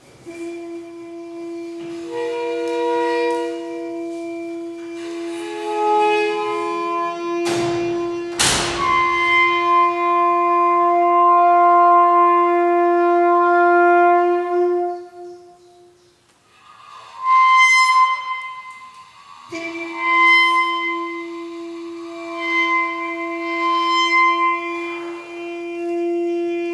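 Hechtyphon and microtone duplex playing long held, overlapping tones in a wind-instrument timbre: a steady low note with shifting higher notes above it. Two sharp cracks sound about seven and eight seconds in. The sound thins to a brief lull in the middle before the low note comes back.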